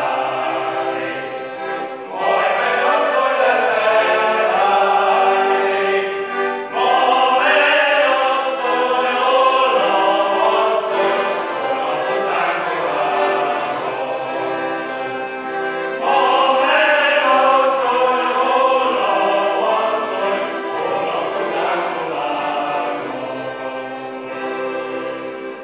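A small men's choir singing a song in harmony, in phrases with held notes.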